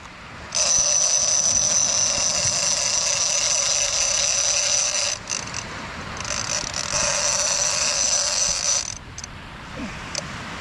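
Gold Shimano Tiagra big-game reel screaming as a hooked shark runs line off it, the sign of a shark on the run. It starts about half a second in, breaks off briefly about five seconds in, and stops about nine seconds in.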